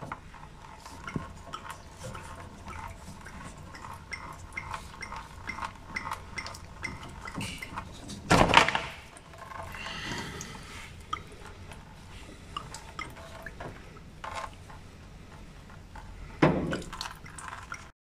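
Petrol dripping and splashing from a fuel line just disconnected from the fuel filter under a 2002 Ford Fiesta, with small clicks and clinks of the plastic fuel-line fittings being handled. Two louder thumps come about eight and sixteen seconds in.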